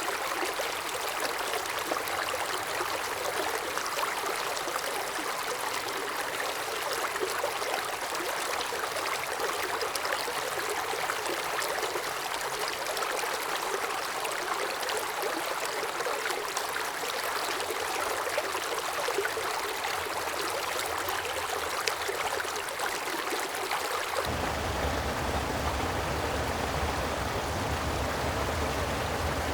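Creek water rushing and splashing over rocks in a steady stream. About 24 seconds in it switches abruptly to a deeper, fuller rush with a low rumble.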